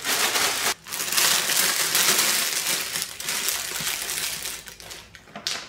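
Clear plastic bag of crisped rice cereal crinkling and rustling as it is handled, the cereal shifting and rattling inside. The rustle has a short break about a second in and dies down near the end.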